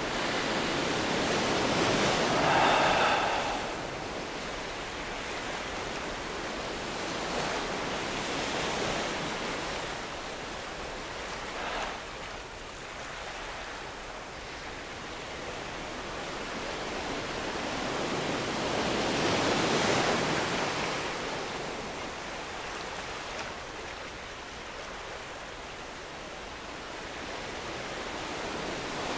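Ocean surf, waves washing in and ebbing away in slow swells several seconds apart. A short high call with an even stack of pitches sounds about three seconds in.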